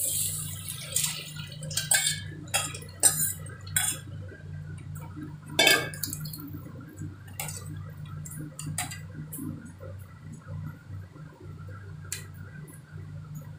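Tamarind gravy poured into an enamel pot with a splash, then a steel ladle stirring it and clinking against the pot a dozen times at uneven intervals; the loudest clink comes about six seconds in. A low steady hum runs underneath.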